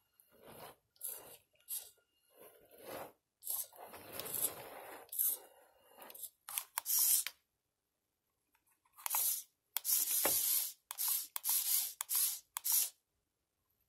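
Small RC truck's electric drive motor and gears whirring in short stop-start bursts, with a gap of about a second and a half in the middle.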